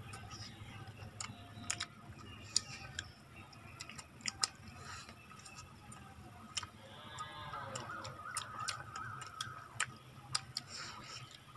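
Close-up eating sounds of people eating rice and fried chicken with their hands: chewing and lip smacking heard as scattered sharp wet clicks. A brief faint sliding tone sounds in the background about two thirds of the way in.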